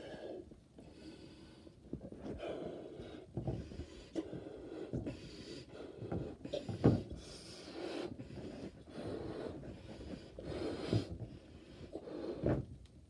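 A person blowing up a 24-inch balloon by mouth: a series of breaths, each a quick gasp of air followed by a long puff into the balloon.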